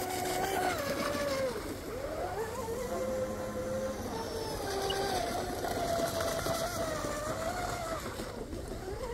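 Motor of an RC hydroplane running on the water, a whine whose pitch dips and climbs again several times as the boat turns and runs its pass.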